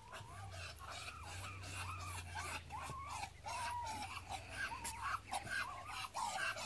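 Long-haired tabby cat purring as it is stroked: a low, steady hum that fades out about halfway through. Over it come many short, wavering calls from chickens.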